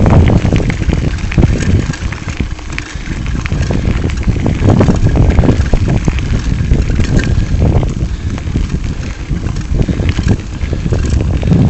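Wind buffeting the microphone of a camera riding on a moving bicycle, a low rumble that swells and eases, with the tyres crunching over a gravel trail and the bike rattling in quick crackling clicks.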